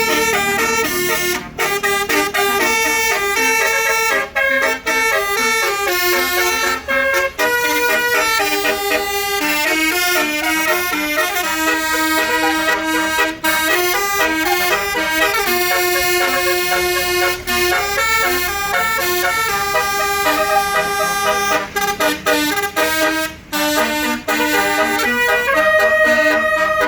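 Basuri telolet horn on a tour bus playing a tune: a quick run of stepped horn notes, with brief breaks between phrases.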